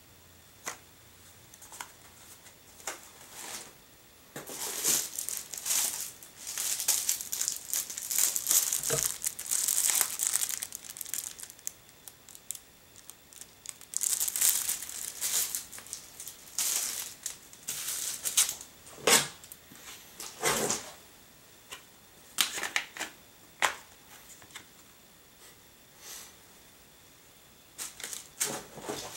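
Plastic product packaging crinkling in stretches as it is handled, with a few sharp knocks as items are set down on a shelf.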